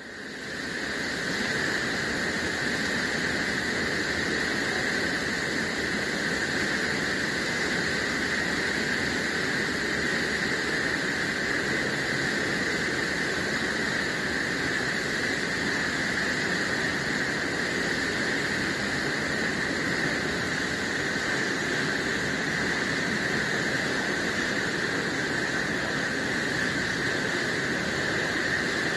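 Steady rushing ambience of an indoor spa pool hall, a constant hiss with a high-pitched edge to it that does not change.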